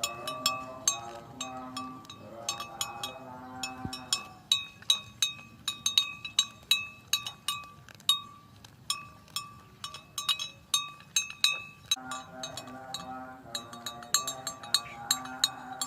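Cowbells hung on grazing cows clinking and ringing irregularly, many quick strikes, thickest in the middle. A pitched, wavering sound sits underneath for the first few seconds and again from about twelve seconds in.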